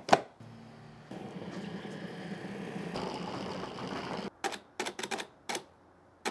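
Food processor running for about four seconds, its blade cutting beef fat into flour for tortilla dough. It is then pulsed in several short bursts.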